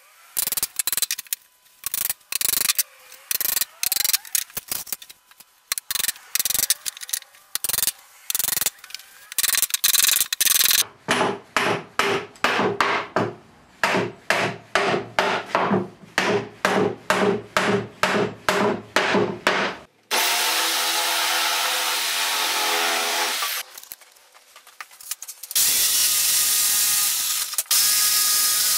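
Claw hammer driving nails into pallet-wood boards: irregular blows at first, then a steady run of ringing blows about two a second. Later an electric jigsaw runs steadily in two stretches, the second cutting along a plank near the end.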